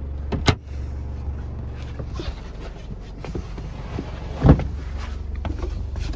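Wooden cabinet doors being opened and shut by hand: a sharp latch click about half a second in, a few light clicks, and a louder knock at about four and a half seconds, over a steady low hum.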